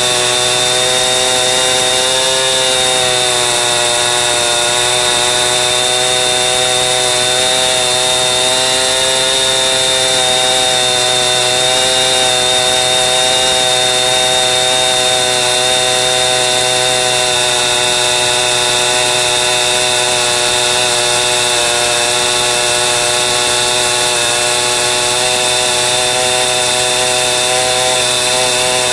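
Chainsaw running steadily at high revs under load, ripping along the length of a log, with small dips and rises in engine pitch as the cut goes.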